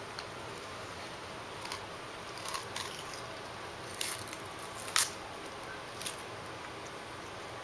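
A small child biting and chewing a raw onion: a handful of short, crisp crunches, the sharpest about four and five seconds in.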